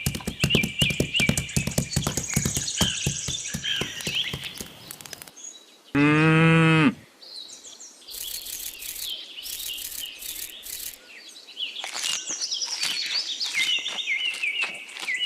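Farmyard ambience: small birds chirping over and over, with many sharp clicks during the first five seconds. About six seconds in, one farm animal gives a single call lasting about a second.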